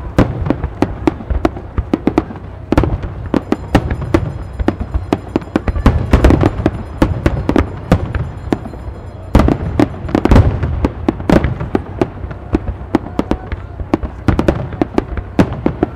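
Fireworks display: a rapid, continuous barrage of aerial shells bursting, dense overlapping booms and cracks, with louder clusters about six seconds in and again around ten seconds in.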